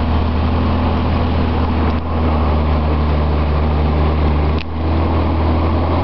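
Toyota Land Cruiser 60's engine running steadily under load as it drives through snow, heard from inside the cab, with a brief dip in the sound about two-thirds of the way through.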